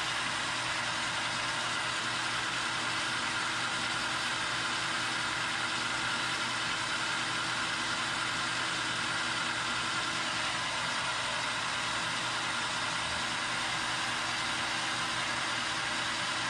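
Metal lathe running steadily, its spindle turning a new feed nut on an arbor while the tool cuts an oil groove into it; an even motor and gear hum with several constant tones.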